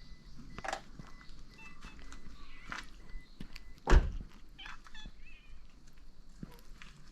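Outdoor cats moving about with scuffling footsteps and a few short, faint calls, with one loud thump about four seconds in.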